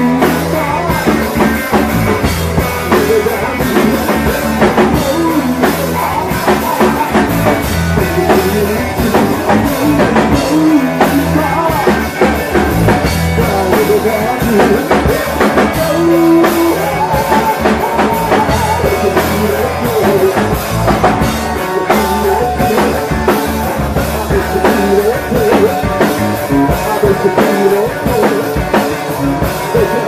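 A rock band playing live and loud, with a drum kit hitting steadily under the guitars.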